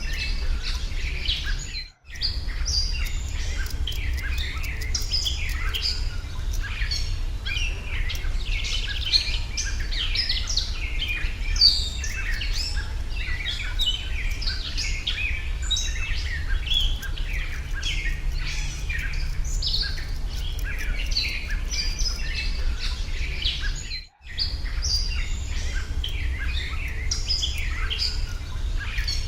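Many birds chirping and singing at once over a steady low rumble. The sound cuts out completely for a moment twice, about two seconds in and again a few seconds before the end.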